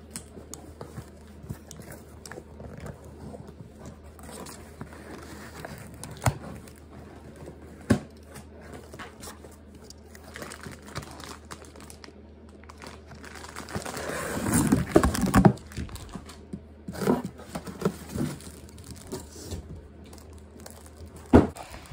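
Cardboard box being torn open and pulled apart by hand: crinkling and tearing of cardboard with a few sharp knocks, busiest a little past the middle.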